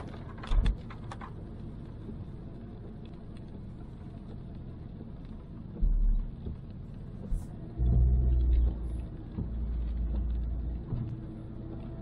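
Car cabin sound while driving on a wet road in the rain: a steady low road-and-engine rumble, swelling into louder deep rumbles about six seconds in and again from about eight to eleven seconds.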